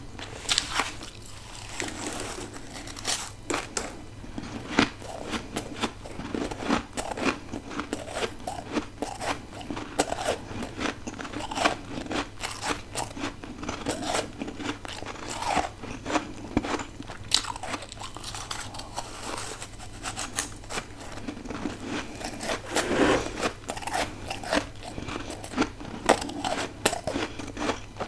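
A person biting and chewing ice, a dense, irregular run of crisp crunches and crackles.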